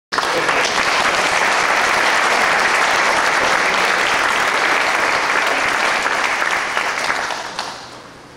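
Theatre audience applauding steadily, then dying away near the end.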